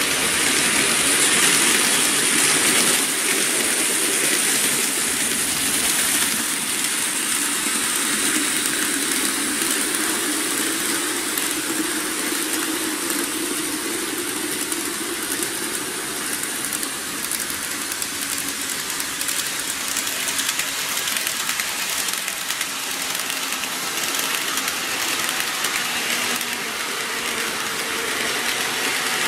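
N gauge model electric trains running on the track, a steady rattling hiss of small wheels on rail flecked with fine ticks.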